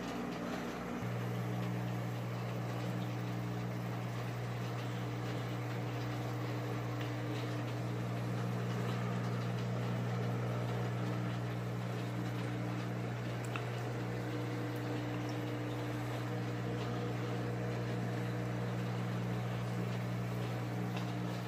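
Steady electrical hum of running aquarium equipment, over a faint even hiss. The hum grows stronger about a second in.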